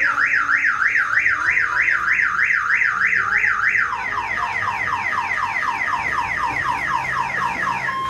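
Car alarm siren sounding: a tone sweeping up and down about three times a second, switching about four seconds in to a faster run of falling chirps.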